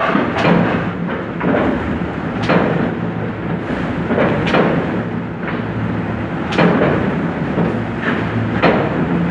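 Hand-fed platen sheet-cutting machine running, its platen closing with a sharp thump about once a second over a steady motor hum.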